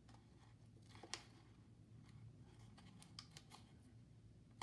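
Faint crackles and ticks of stiff cardstock being folded and pressed together by hand. The loudest is about a second in, and a few more come close together around three seconds in.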